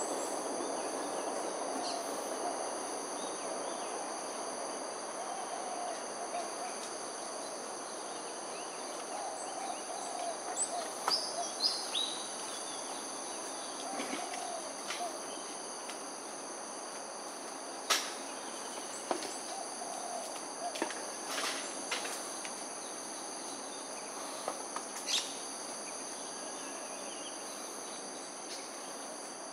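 Outdoor ambience: a steady high-pitched insect drone with scattered bird chirps and a few sharp calls, over a low background rumble that eases off in the first few seconds.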